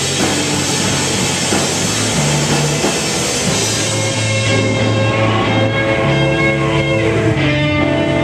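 Live rock band playing loud on electric guitars, bass and drum kit. About halfway through, the cymbals thin out and held guitar notes ring over the bass as the song's closing jam winds down.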